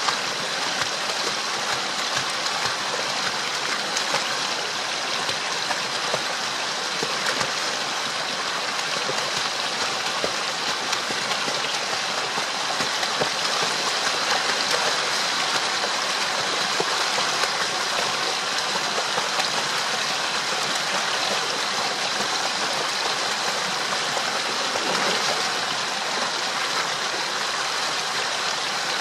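Small creek waterfall pouring into a shallow pool: steady rushing and splashing water.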